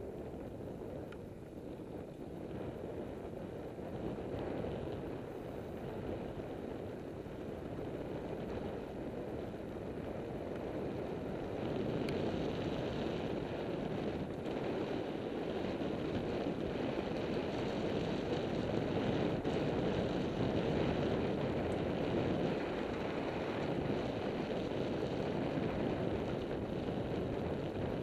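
Wind rushing over the microphone of a camera riding along on a bicycle at speed, mixed with tyre noise on tarmac. It is a steady rush that gets louder through the first half and then holds.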